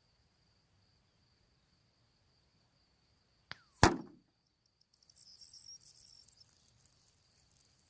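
A single sharp shot from a Hatsan air gun about four seconds in, just after a faint click. A steady high insect trill runs underneath.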